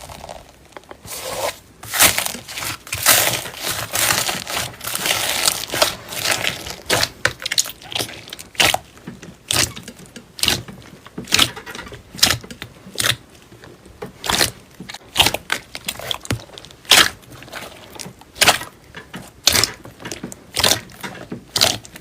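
Slime being worked by hand, crackling and popping: a dense crackle for the first few seconds, then a string of sharp pops roughly once a second.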